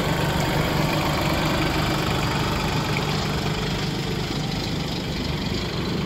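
TAFE 6022 compact tractor's diesel engine running steadily at idle.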